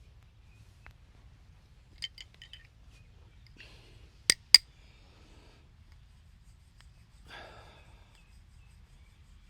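Hands working during a head and back massage: a quick run of light taps, then two sharp, loud smacks about a third of a second apart, and a brief rustle of hands on skin or cloth near the end.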